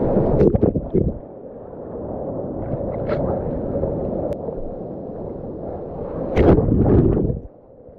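Whitewater from a broken wave rushing over the surfboard and the surfer, gurgling close against the mouth-held camera; it eases to a steady wash of foam and paddling water, then a second loud rush of water surges near the end.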